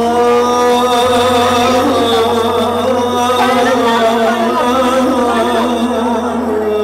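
Live band playing a slow Turkish folk melody in long held notes over a steady low drone.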